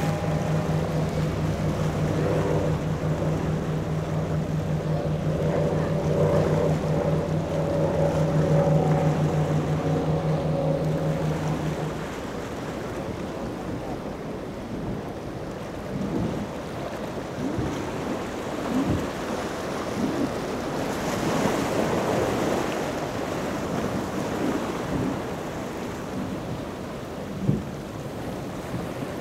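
A powerboat's engines drone at a steady pitch, then stop about twelve seconds in. What follows is the rush of waves and wind buffeting the microphone, with a few short gusts.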